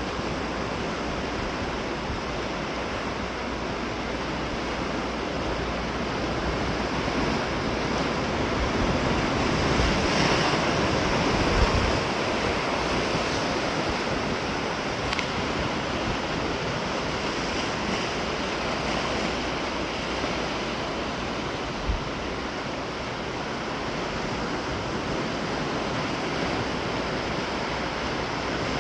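Sea waves breaking and washing on the shore in a continuous surf that swells louder about a third of the way in. A low wind rumble on the microphone runs underneath.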